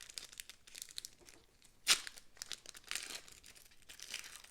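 A trading-card pack's plastic wrapper crinkling and being torn open, with one sharp crackle about two seconds in.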